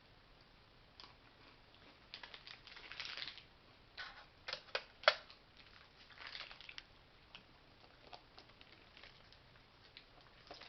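MRE crackers being bitten and chewed: irregular crisp crunches in clusters, the loudest a sharp snap about five seconds in.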